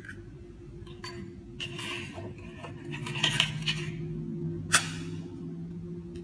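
Eggs being cracked on the rim of a stainless-steel mixing bowl: sharp taps of shell on metal with short crackles and clinks as the shells are pulled apart. The sharpest tap comes a little under five seconds in. A low steady hum runs underneath.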